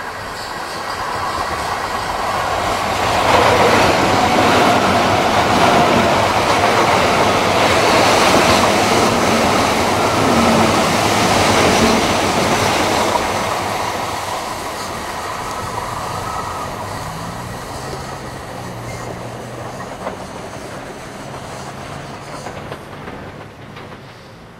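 A Southeastern Electrostar electric multiple-unit train passes close by. Its wheels rush and clatter on the rails under a thin motor whine, building over the first few seconds and staying loud for about ten seconds. It then fades away, with a few sharp clicks near the end.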